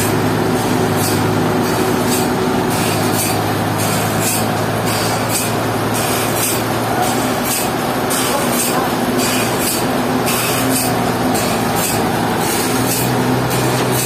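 A motor running steadily with a low hum. Its pitch steps up a little near the end, and short hissing bursts repeat about once or twice a second over it.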